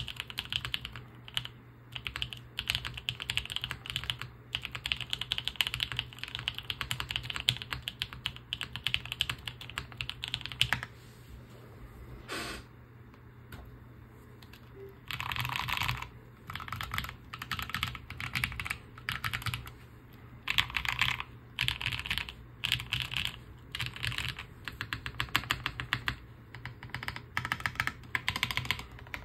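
Typing on a custom mechanical keyboard built with stock Gateron Cream Soda switches, GMK Devoted keycaps, TX stabilizers and a top-mounted POM plate, with paper-towel and force-break mods. Continuous typing for about eleven seconds stops for a few seconds, then goes on as short separate runs of key presses, about one run a second.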